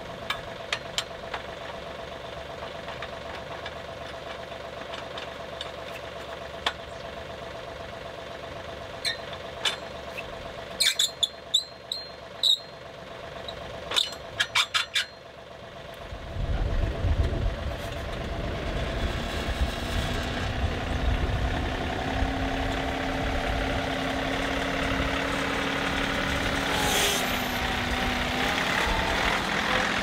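A John Deere 2038R compact tractor's three-cylinder diesel idling while steel parts clank and knock sharply, the backhoe ripper tooth being handled. About halfway in, the engine comes up under load and runs on steadily with a hydraulic whine, with a brief squeak near the end.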